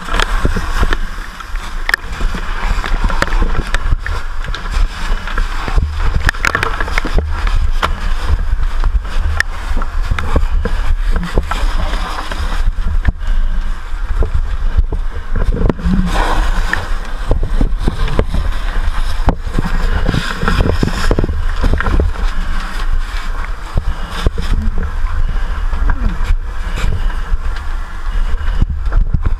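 Steady low rumble with frequent knocks, rustles and scrapes from a firefighter's helmet-mounted camera being carried through a burning building.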